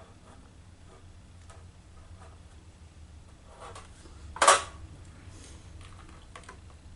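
Light clicks and taps of small tools and parts being handled on a workbench, with one much louder, short clink or clatter about four and a half seconds in.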